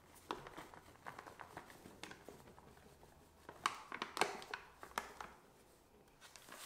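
Paper flour packet crinkling as flour is poured out of it into a stainless steel mixing bowl, in quiet scattered crackles with a few louder ones just past the middle.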